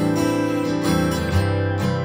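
Instrumental background music led by guitar, with no singing.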